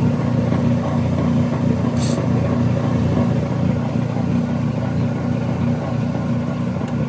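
Whirlpool direct-drive washing machine's drain pump running with a steady low hum, pumping the water out of the tub. A brief click sounds about two seconds in.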